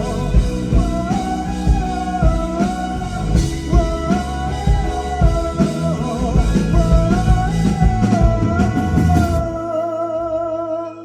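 Live rock band playing: drum kit, bass and guitar under a melody line. The drums stop about two thirds of the way in, leaving a held chord ringing.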